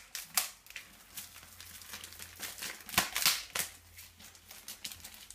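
Thin plastic bag crinkling and rustling in irregular bursts, loudest about three seconds in, as a model-kit runner bag is handled and opened.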